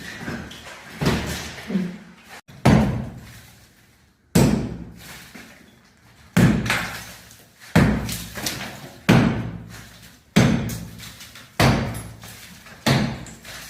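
Heavy hammer blows struck over and over, about nine of them, roughly one every one and a half seconds. Each dies away with a short room echo.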